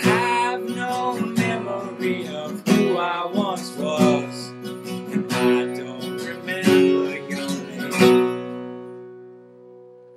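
Acoustic guitar strummed through the song's closing bars; a last chord about eight seconds in rings out and fades.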